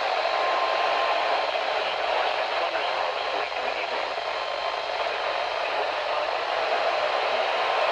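Weather radio receiver hissing steadily with static on a weak channel, no broadcast voice coming through. A faint steady tone sits under the hiss for about a second near the start.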